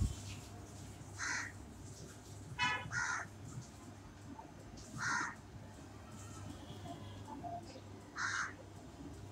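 A bird calling in the background: about four short calls a couple of seconds apart, over a steady low hum, with a single knock at the very start.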